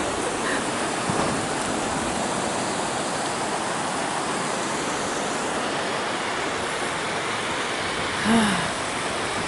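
Steady rush of water from a beach waterfall and surf, an even noise with no breaks. A brief voice sound comes near the end.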